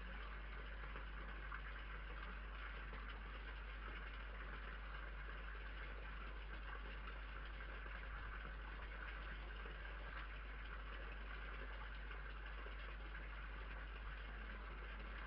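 Steady hiss with a constant low hum, unchanging throughout and with no distinct clicks or calls: the background noise of a security camera's microphone.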